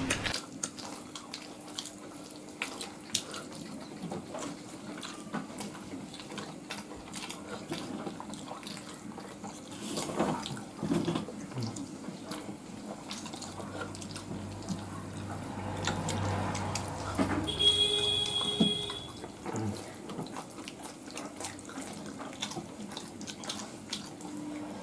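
People eating rice and fish curry by hand: wet chewing and lip smacks with many small clicks, and fingers squelching through rice on steel plates. A brief high tone sounds about two-thirds of the way through.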